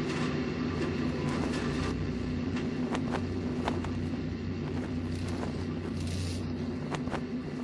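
A steady low rumble with a droning hum, broken by scattered sharp clicks.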